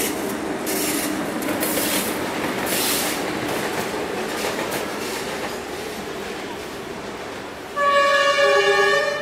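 DF4B diesel locomotive running light past: its diesel engine drone and its wheels clattering over the rail joints, slowly fading as it goes by. About eight seconds in, a loud train horn sounds a multi-tone blast lasting just over a second.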